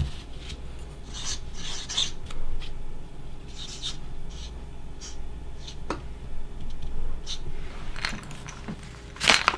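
Sharpie marker writing on a paper sticky note: a run of short, separate strokes as a name is written. A louder burst of noise comes near the end.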